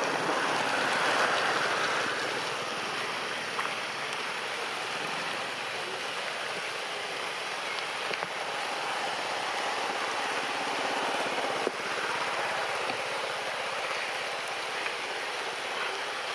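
Steady rain falling on tree foliage, an even hiss with an occasional sharper tick.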